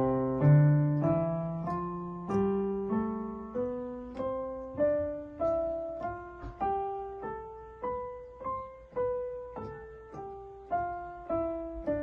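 Korg Pa1000 arranger keyboard on a grand-piano voice playing a major scale slowly with both hands an octave apart, over two octaves. The notes are even and separate, about one every 0.6 s, each struck and left to fade.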